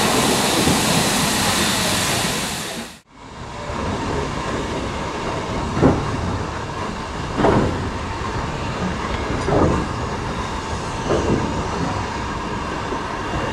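Steam locomotive: a loud, steady hiss of steam that cuts off about three seconds in. It is followed by the engine and its coaches running slowly past, a steady rumble with a soft beat every second and a half to two.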